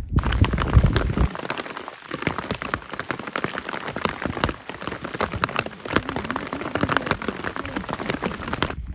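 Rain falling steadily on surfaces, a dense crackle of many separate drop hits. There is a low rumble for about the first second.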